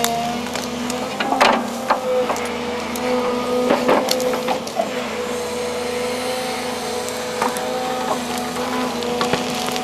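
Volvo excavator running steadily with a constant pitched whine, while tree roots crack and splinter as they are torn out of the ground, with the sharpest snaps about one and a half and four seconds in.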